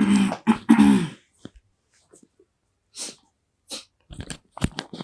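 A person imitating a dog barking with three quick voiced woofs in the first second, followed by short breathy puffs and sniffs.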